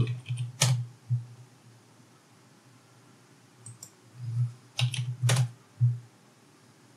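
Computer keyboard keys tapped while numbers are typed in: a single keystroke just under a second in, then a short run of several keystrokes between about four and six seconds in.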